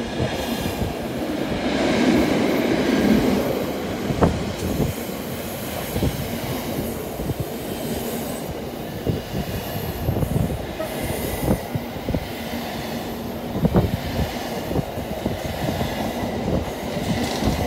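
Container wagons of a freight train running past, a steady rumble of wheels on rail with many wheel knocks and a few sharper ones.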